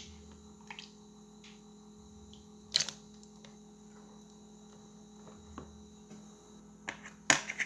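Wooden spoon knocking and scraping softly against a steel pot and a plastic container as sausages in sauce are spooned across, with a sharper knock about three seconds in and a louder couple of knocks near the end, over a faint steady hum.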